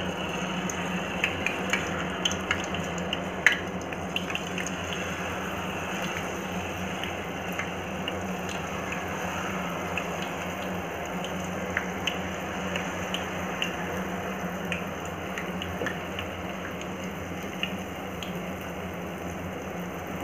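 Jalebi batter frying in hot oil in a kadhai: a steady sizzling hiss with scattered small pops and crackles, thicker in the first few seconds, over a low steady hum.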